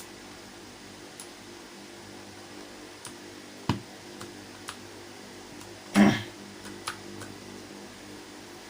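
Scattered sharp plastic clicks and taps of keycaps being handled and pressed onto a mechanical keyboard's switches, several in all, the loudest about six seconds in, over a steady low hum.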